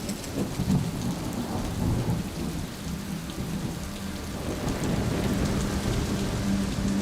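Rain falling steadily with rolling thunder rumbling low underneath, and a faint steady low hum coming in about halfway through.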